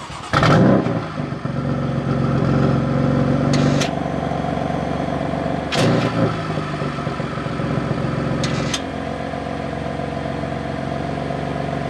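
BMW M3's S55 twin-turbo inline-six, breathing through resonated downpipes, a single midpipe and stock mufflers, starts with a short burst of revs and settles into a steady idle. There is no loud cold-start flare, because the tune has deleted it, and the owner calls the idle super quiet. The idle steps down a little several seconds in.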